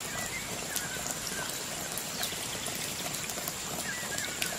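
Steady water noise with scattered small ticks and a few faint, short chirps.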